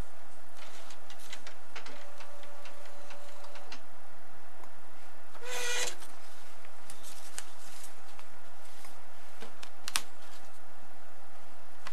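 HP Color LaserJet Pro CP1525n colour laser printer running an envelope through and out of its output slot: irregular light mechanical clicks and ticks. A brief high squeak comes about five and a half seconds in, and a single sharp click just before ten seconds.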